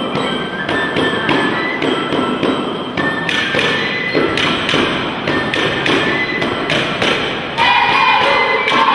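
Romanian shepherd's flute (fluier) playing a quick folk melody over a steady beat of sharp knocks, about two to three a second. It gets louder about three-quarters of the way through.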